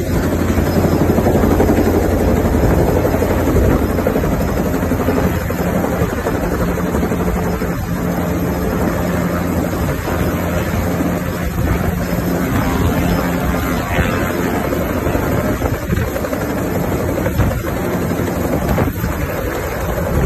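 Two-bladed turbine police helicopter hovering low and descending to land: a steady, loud beat of the rotor blades over the engine.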